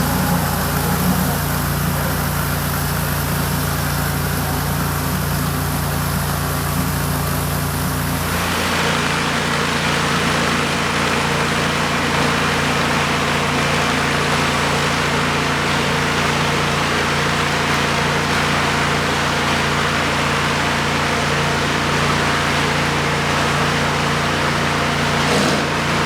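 Engine-driven high-pressure washer running steadily under a rotary floor surface cleaner. About eight seconds in the sound shifts: the low engine tone drops back and a broad hiss of water spray takes over.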